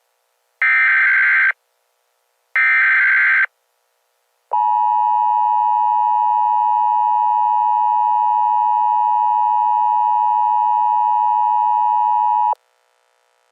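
Emergency Alert System tones: two short buzzy data bursts, then a steady two-tone attention signal held for about eight seconds, which cuts off suddenly. The sequence announces the start of a new emergency alert message.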